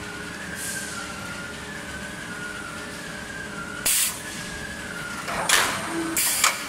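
Pneumatic guillotine cutter on a polycarbonate corrugated sheet extrusion line: steady running machine noise with a faint wavering whine, then short, sharp bursts of compressed-air hiss about four, five and a half and six and a half seconds in as the air cylinders work the cutter blade.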